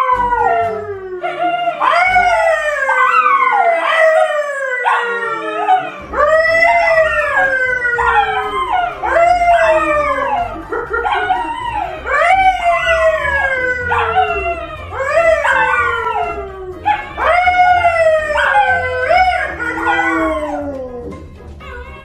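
A pet animal howling over and over, each drawn-out call jumping up sharply in pitch and then sliding down, with barely a pause between calls.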